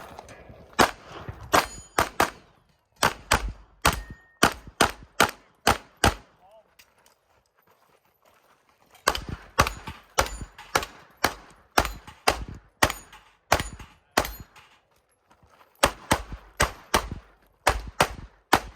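Glock 17 9mm pistol fired in fast strings of shots, several a second, with short breaks between strings: a stage of a practical pistol match being shot. The longest break comes about six seconds in and lasts nearly three seconds.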